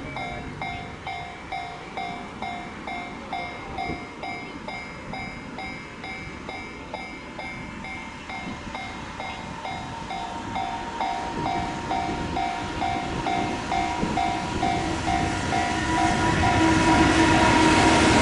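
Japanese level-crossing warning bell ringing in an even electronic ding-ding, about two strokes a second, while an approaching freight train's rumble builds and grows loud near the end.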